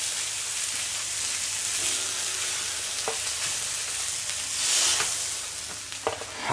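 Meat-and-vegetable skewers sizzling on a hot steel griddle plate, a steady hiss that swells briefly about five seconds in. A few light clicks as the metal skewers are set down on a steel serving platter.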